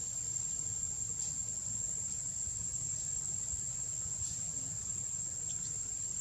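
Insect chorus, crickets or cicadas, making one unbroken high-pitched drone, over a steady low rumble.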